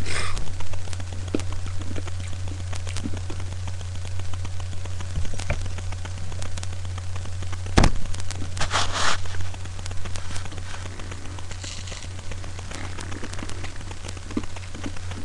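A steady low hum, with scattered clicks and a sharp click followed by a short rustle about eight seconds in.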